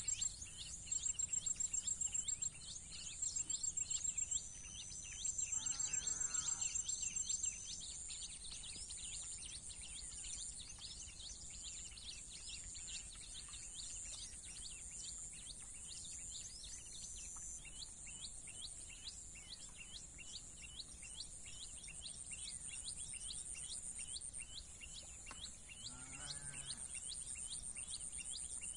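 Insects trilling and pulsing high and steadily, with many small bird chirps; the trilling is loudest in the first several seconds. Two brief lower calls stand out, about six seconds in and again near the end.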